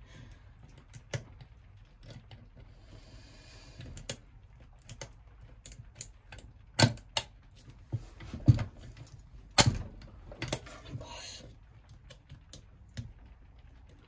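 Lock pick and tension wrench working in a solid-brass Master Lock 607 padlock held in a vise: scattered small metallic clicks and taps, with a few sharper clicks in the middle.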